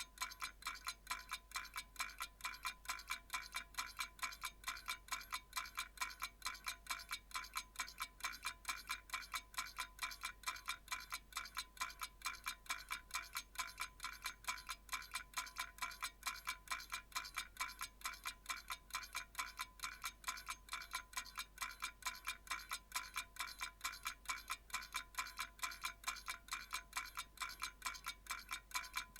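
Mechanical clock ticking steadily and evenly, about three ticks a second, each tick with a slight metallic ring.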